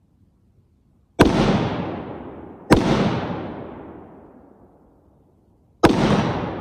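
Three shots from an AR-15 rifle, about a second in, a second and a half later, then about three seconds after that, each followed by a long fading echo.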